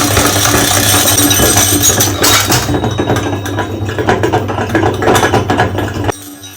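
Meat grinder motor running with glass marbles clattering and clicking against the auger inside, then cutting off suddenly about six seconds in.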